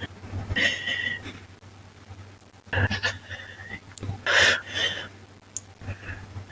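A person breathing close to the microphone: three separate breaths, about a second in, near three seconds and around four and a half seconds, over a steady low electrical hum.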